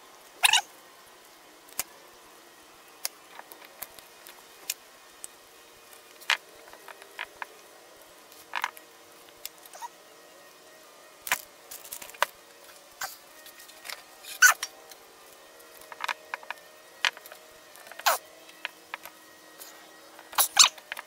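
Irregular clicks and knocks of small parts and hand tools being handled while a brake master cylinder is reassembled on the bench, over a faint steady hum.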